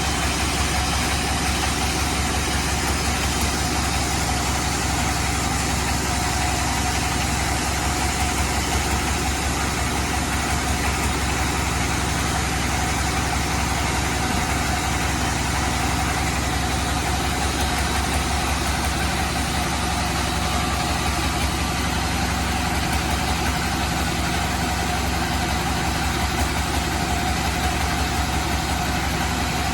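Sawmill band saw running steadily while sawing teak, a continuous machine drone with a low hum and a steady whine that holds unchanged throughout.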